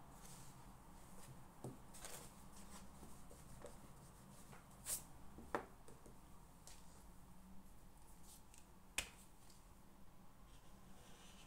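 Near silence: a faint steady hum of a quiet room, broken by a handful of short clicks and taps from someone working at a desk. The sharpest taps come about halfway through and again near the three-quarter mark.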